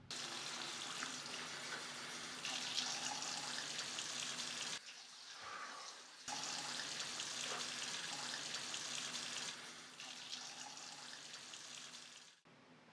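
Water running from a tap into a sink, steady, breaking off for a second or so about five seconds in, then running again until it cuts off abruptly near the end.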